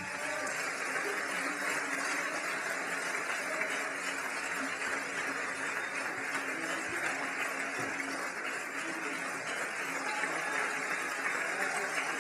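Audience applauding, a steady even clapping that starts just as the violin and piano stop.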